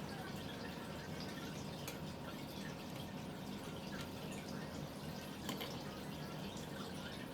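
Faint, scattered small clicks and taps over a steady low background hum.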